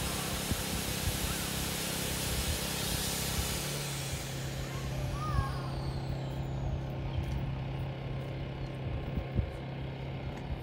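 Air pump inflating the inflatable tent: a steady motor hum with a loud rush of air. About four seconds in, the rush of air fades and the hum drops in pitch as the tent nears full inflation, and the pump keeps running at the lower pitch.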